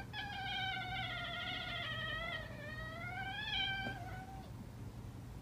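Orange tabby cat giving one long, drawn-out yowl that wavers in pitch, sags and rises again, and stops about four seconds in.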